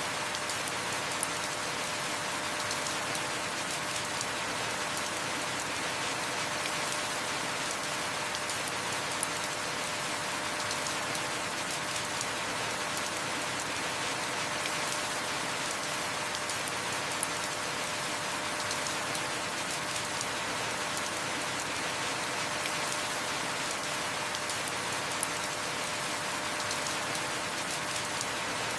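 Heavy rain falling steadily, with fine drop ticks and an occasional sharper drop hit.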